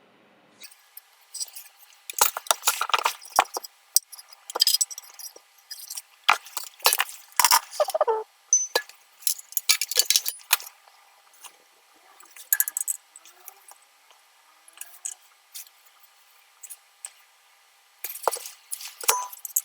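Irregular clinks, clicks and clatter of small metal tools and parts being handled, in scattered bursts with short quiet gaps.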